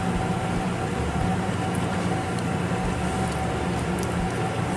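Steady low machine hum with a thin steady tone above it, and a few faint high clicks.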